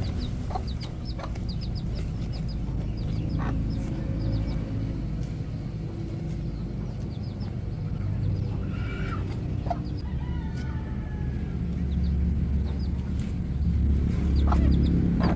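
Chickens clucking, with clusters of quick high chirps and a steady low rumble underneath that swells near the end.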